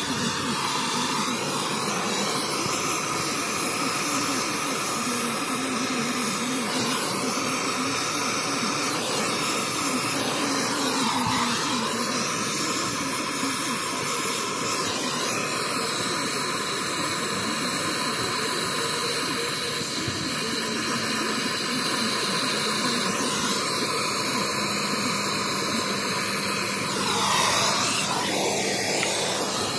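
Brazing torch flame hissing steadily as it heats copper refrigerant line joints, swelling briefly near the end.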